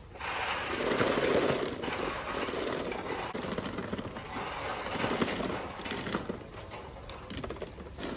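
Freshly hulled, wet walnuts rolling down a steel chute and clattering into a plastic crate: a dense rattle of many small knocks, loudest in the first two seconds, then thinner as the last nuts are pushed off.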